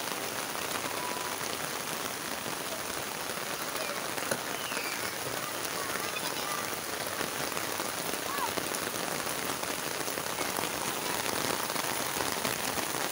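Steady rain falling on a paved outdoor court, an even hiss that holds throughout.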